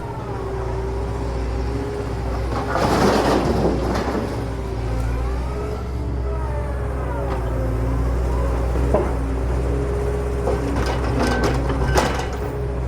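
Excavator's diesel engine running steadily under a whine that rises and falls as the hydraulics work the arm. There are two louder bursts of noisy scraping with knocks, about three seconds in and again near the end.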